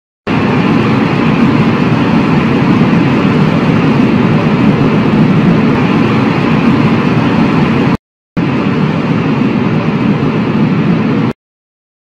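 Loud, steady rushing noise of a logo-intro sound effect, with no clear pitch. It breaks off for a moment about eight seconds in, then resumes and cuts off suddenly near the end.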